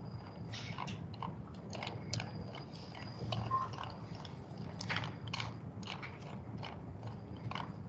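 Irregular small clicks and crunchy ticks close to the microphone, a few a second and bunched into short clusters, over a low steady hum.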